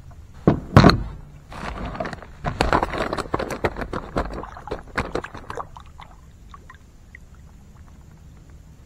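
Sharp knocks on a plastic fishing kayak with water splashing: two loud knocks about half a second in, then a few seconds of clattering and sloshing that dies away.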